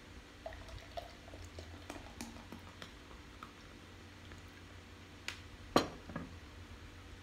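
Beer poured from a glass bottle into a glass beer mug, with faint small glugs and ticks, then a sharp knock near the end as the glass bottle is set down on the table.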